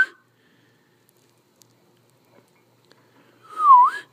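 Airedale terrier whimpering in its sleep while dreaming: a short, breathy whine that dips and then rises in pitch near the end, with a few faint mouth clicks before it.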